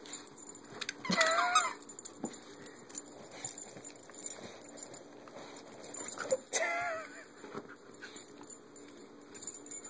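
A squeaky plush chicken dog toy squeaked twice as the corgi chews it, each a wavering honk of about half a second, with light rustling and clicks of chewing between.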